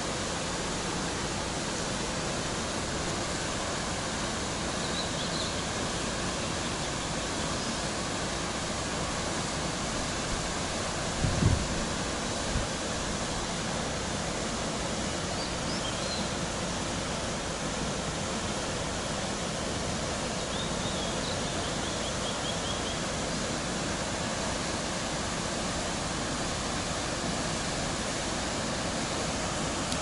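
Steady rushing of a waterfall and its river in a rock gorge, an even wash of noise. A brief low thump about eleven seconds in, and a few faint high chirps.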